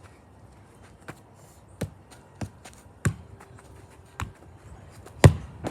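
A ball knocking as it is hit and bounces: six sharp knocks at uneven spacing, the loudest near the end.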